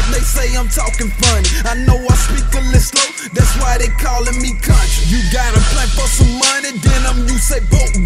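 Hip hop track: a rapped vocal over a beat with deep sub-bass, which drops out briefly twice.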